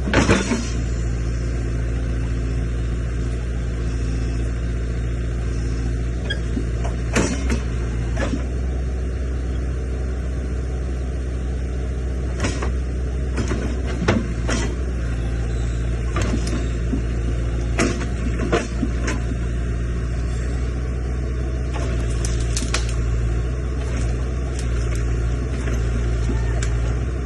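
Excavator diesel engine running steadily at idle, with scattered sharp knocks and clicks over it.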